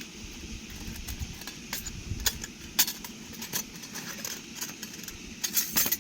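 Small metal camping gear being handled: irregular sharp clicks and light clinks, a few at a time and bunched together near the end, over a steady outdoor hiss.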